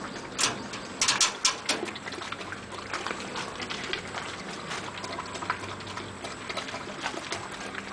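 Two Belgian Malinois eating dry kibble from a plastic bowl: irregular crunching and clicking of kibble, with a cluster of louder crunches about a second in.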